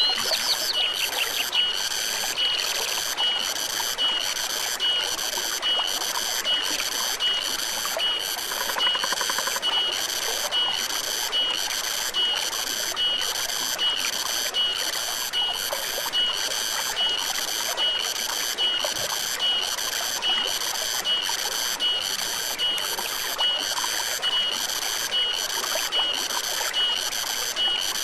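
A stream runs with a steady trickle under a high-pitched animal call that pulses in an even rhythm, about one and a half pulses a second. A few quick rising chirps come right at the start.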